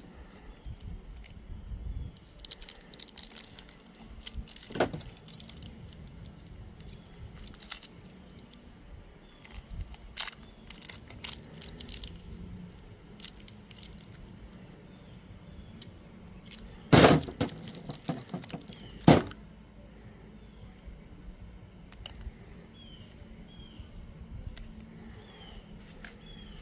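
Handling noise of small tools and plastic RC-car parts: scattered clicks, rattles and light knocks, with two loud knocks about two seconds apart a little past halfway.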